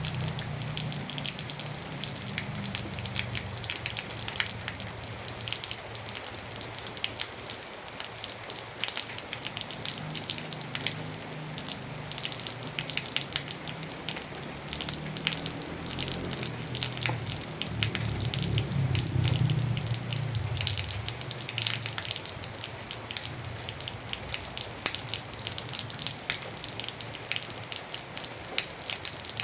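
Steady rain, with many close drips and drops pattering sharply on a surface. A low rumble rises and fades in the background, strongest about two-thirds of the way through.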